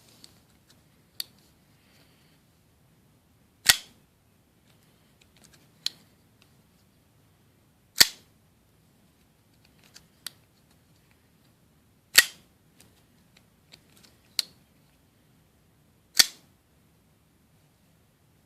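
Kershaw Thermite assisted-opening flipper knife being snapped open and shut: four loud, sharp snaps about four seconds apart, with softer clicks in between.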